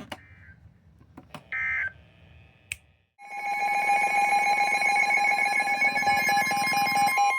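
A short burst of Emergency Alert System SAME data tones, then about three seconds in the EAS attention signal starts: a loud, steady two-tone blare (853 and 960 Hz) that runs on without a break.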